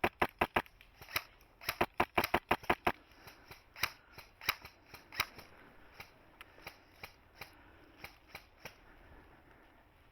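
Airsoft guns firing: a quick string of sharp, loud shots through the first three seconds, then fainter, scattered shots.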